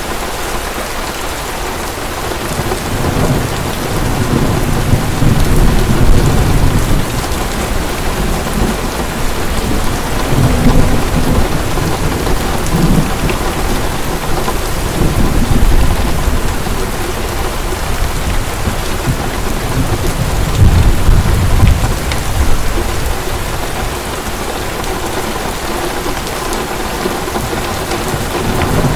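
Heavy rain pouring steadily, with thunder rumbling low several times.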